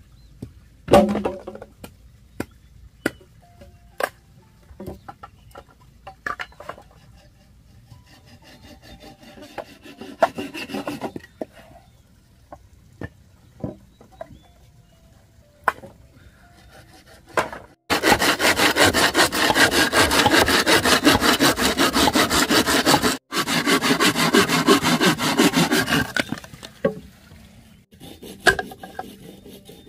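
Saw cutting through a bamboo pole: a steady rasp of strokes for about eight seconds in the second half, broken once briefly. Before it, sharp knocks and taps of bamboo being handled on a wooden block, one loud knock about a second in.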